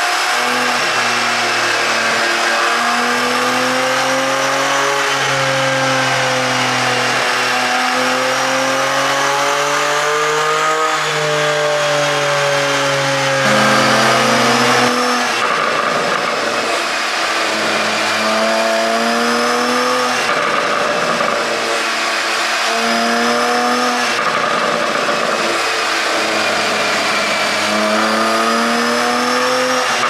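Porsche 718 Cayman GTS's naturally aspirated 4.0-litre flat-six being revved with the car stationary. In the first half, on the stock ECU map, the revs rise and fall slowly. About halfway in it switches to an ECU tune made for exhaust pops: a series of short rev blips that drop back with popping on the overrun.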